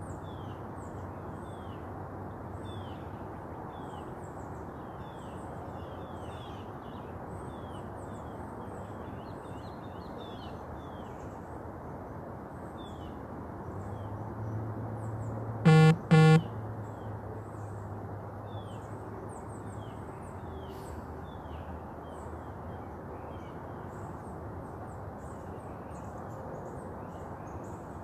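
Many small birds chirping over a steady outdoor background hum. About halfway through, a vehicle passes and its horn gives two short loud honks about half a second apart.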